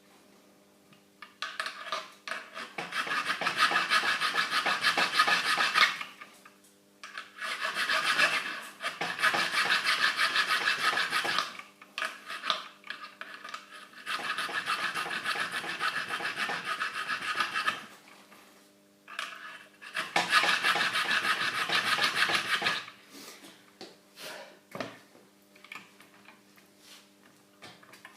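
A round metal file rasps inside the steel jaws of end-cutter pliers held in a vise. It comes in four bursts of quick back-and-forth strokes, each a few seconds long, with short pauses between and a few small ticks near the end. The jaws are being opened out and rounded to make fret-pulling pliers.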